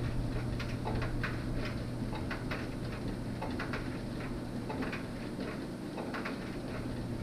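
Light, irregular clicks and ticks from a small bulb socket and a key ring being handled in the hand, over a steady low hum.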